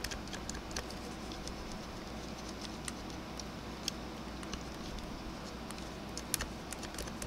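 Sparse, irregular small clicks and scratches of a tool picking and scraping softened paint off the bumper of a plastic model vehicle during hairspray chipping, over a steady low hum.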